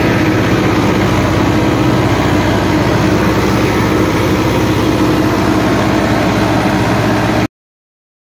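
Tractor engine running steadily, loud and close to the microphone, cutting off suddenly near the end.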